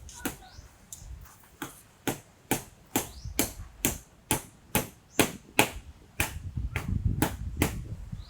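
Footsteps at a steady walking pace, about two steps a second.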